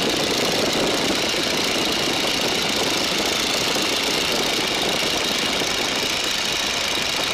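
Boeing Stearman biplane's radial engine and propeller running steadily in flight, heard from the open cockpit.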